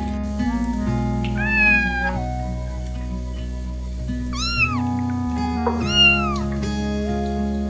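A cat meowing three times, about a second and a half in, just past four seconds and about six seconds in, each call rising then falling in pitch, over background music with sustained notes.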